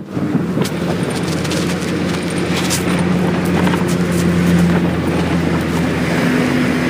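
Bus engine running steadily as the bus travels, a continuous low hum with road noise, heard from inside the bus. A few light rattles come about two to three seconds in.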